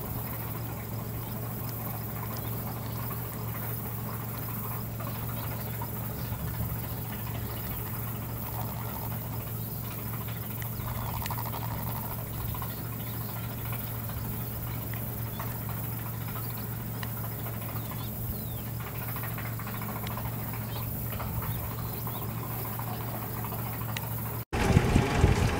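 Steady low hum of an idling boat motor under faint outdoor ambience with scattered small ticks. About a second before the end it cuts off abruptly and a louder, rougher noise takes over.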